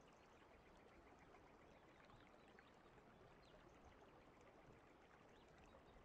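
Near silence: a faint, steady hiss.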